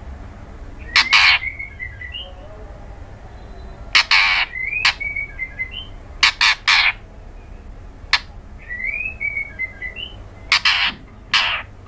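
Female white-rumped shama calling to a male: a series of about seven harsh, rasping calls, with short rising whistled notes between them.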